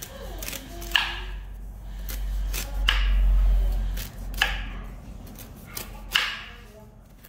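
Knife chopping through a firm, half-ripe noni fruit: four sharp chops, roughly one every one and a half to two seconds, each with a short ringing knock. A low rumble swells up about halfway through.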